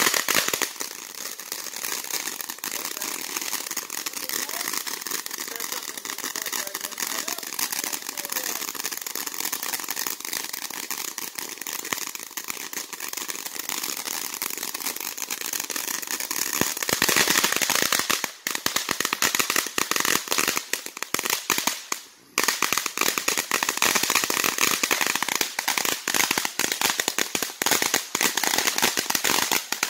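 Consumer ground fountain firework spraying sparks, with a steady hiss and dense crackling. About halfway through the crackling gets louder and denser, with a brief drop just past two-thirds of the way.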